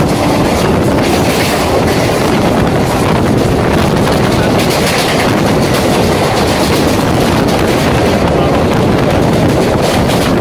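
EMU local train running, heard from on board: steady noise of the wheels on the rails, with wind on the microphone.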